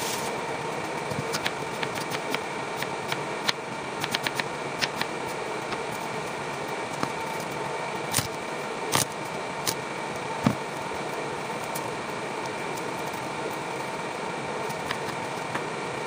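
Irregular taps and knocks of a kitchen knife and vegetables on a cutting board as chilies and tomato are handled and cut, the loudest knock about ten and a half seconds in, over a steady room hum.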